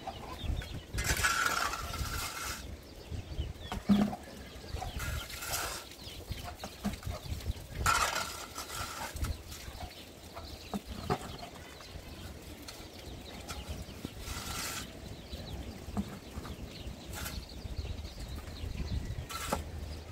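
A metal shovel blade scraping across packed dirt ground as animal dung is scooped up. There are about six rasping scrapes a few seconds apart, the longest about a second in, and a single knock of the shovel about four seconds in.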